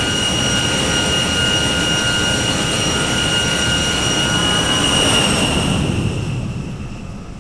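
Jet engine running with a loud roar and a steady high-pitched whine, fading away over the last second or so.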